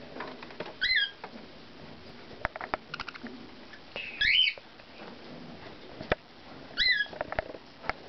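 A budgerigar chirping three times in short squeaky calls: about a second in, around four seconds (the longest and loudest), and near seven seconds, with small clicks and taps between.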